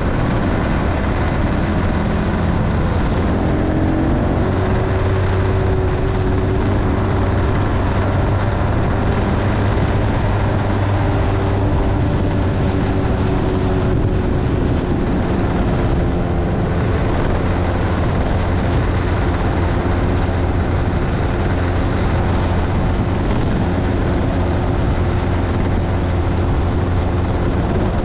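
Motorcycle engine running steadily while riding, its pitch rising a few seconds in and then holding, over a steady rushing noise.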